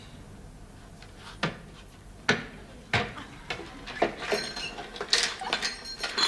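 A few sharp knocks, then from about four seconds in a run of glass milk bottles clinking and rattling in the crates of a milk float.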